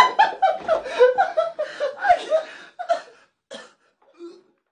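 A man laughing hard: a quick run of short laughs that dies away about three and a half seconds in.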